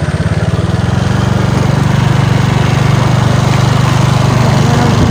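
Small motorcycle engine running steadily, a low pulsing note that holds its pitch and grows a little louder over the first couple of seconds.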